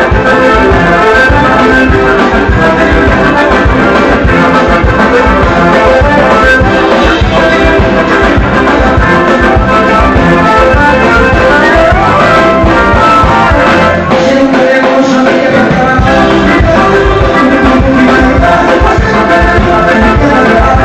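Loud band music led by an accordion, with a steady beat.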